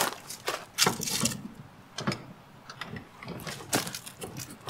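Irregular metal clanks, knocks and scraping as a small camper trailer's tongue jack and frame stands are handled and cranked by hand, the loudest knocks about a second in.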